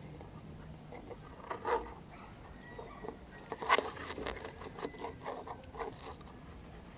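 Irregular rustling and scratching taps, with a quick run of them in the middle few seconds.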